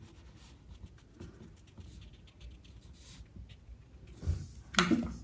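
Fine paintbrush dabbing and stroking on textured sketchbook paper: faint soft scratching with small ticks. Near the end come a couple of louder knocks.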